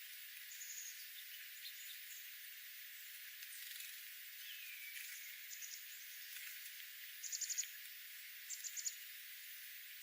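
Small songbirds chirping: scattered short, high notes, a falling call about five seconds in, and two quick runs of four or five notes close together near the end, over a steady faint hiss.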